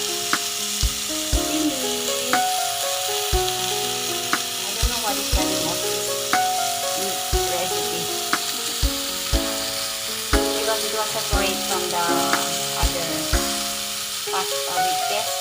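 Food sizzling as it fries in a pot, a steady hiss. Background music with held notes and a regular beat plays over it.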